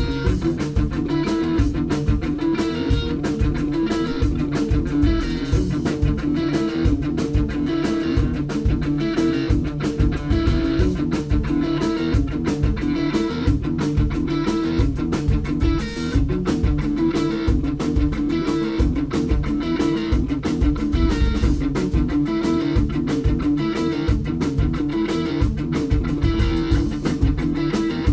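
Live rock band playing loud and without a break: electric guitar over a drum kit and bass guitar.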